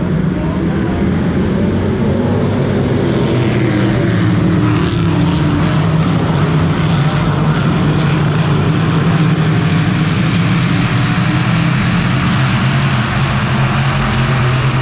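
A field of sportsman-class dirt-track modified race cars running around the oval together, their engines a loud, steady drone. It grows a little louder about midway as the pack comes by.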